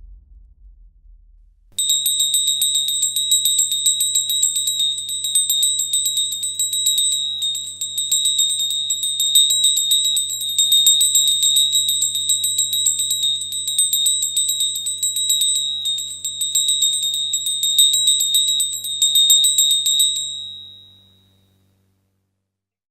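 Small high-pitched hand bell, a pooja ghanti, rung rapidly and continuously, with many strikes a second over one steady ringing tone and a low hum underneath. It starts sharply and fades out near the end.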